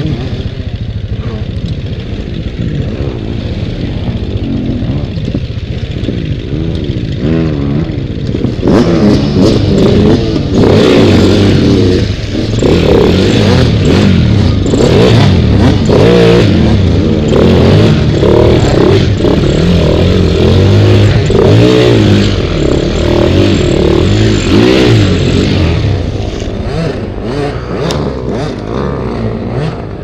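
Dirt bike engine revving under load as the bike pushes through a river crossing, with water churning around the front wheel. The engine pitch rises and falls, working hardest from about nine seconds in until near the end, when it eases off.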